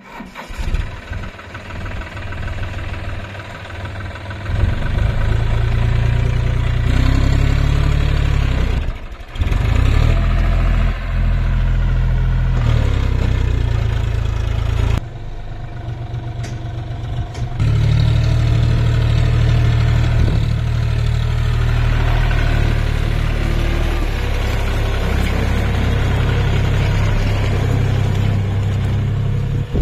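John Deere 5050D's three-cylinder diesel engine running under load as the tractor pulls a trailer heaped with soil. The engine note is steady and deep, and its loudness steps up and down abruptly a few times.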